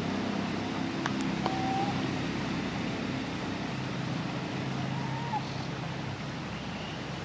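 Steady outdoor background noise with a low drone. Two faint clicks come about a second in, and two short, thin high squeaks, one about a second and a half in and one about five seconds in.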